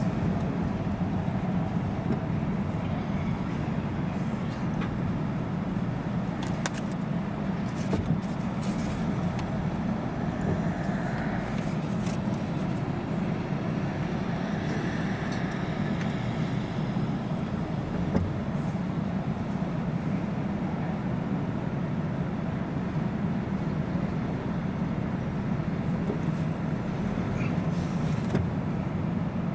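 Steady low engine and road drone of a car heard from inside its cabin while it drives at low speed.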